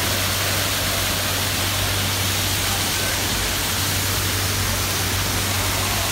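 Artificial garden waterfall pouring steadily down a rock wall into a pond: a loud, even rushing hiss.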